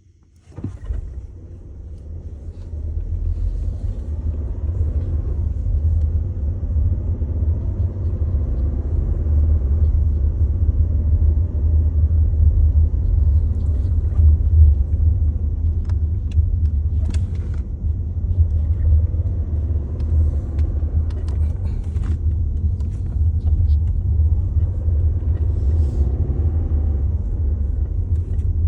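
2022 Volkswagen Tiguan engine restarting from an auto start-stop shutoff about half a second in, then a steady deep rumble and vibration that builds over the first few seconds and holds.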